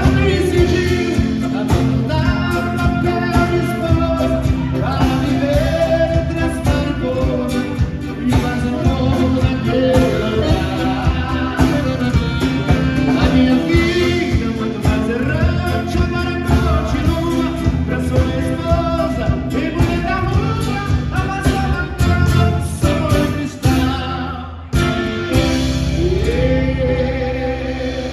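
A song: a voice sings a melody over instrumental accompaniment, with a brief break in the music about three seconds before the end.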